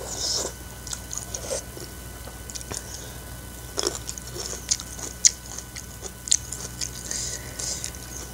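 A person slurping a mouthful of spicy Samyang instant noodles briefly at the start, then chewing with a run of short wet mouth smacks and clicks.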